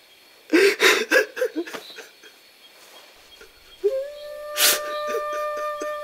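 A man sobbing in short, broken bursts that die away. About four seconds in, a single held note of background music comes in and holds, with one more sharp vocal outburst over it.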